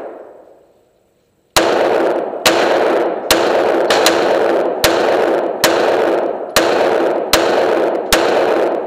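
Glock 17 9mm pistol firing a steady string of about nine shots, roughly one every 0.8 s, starting about a second and a half in, each with a reverberant ring of a small indoor range. It opens on the fading echo of an earlier shot.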